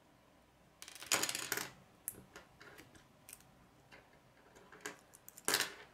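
Plastic K'nex rods and connectors clicking and rattling as they are pressed and snapped together by hand. There is a burst of clicks about a second in, a few light ticks after it, and another loud cluster near the end.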